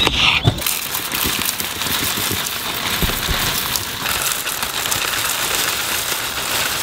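Dry muesli pouring from a plastic bag into a ceramic bowl: a steady, dense pattering rattle of flakes and grains hitting the bowl.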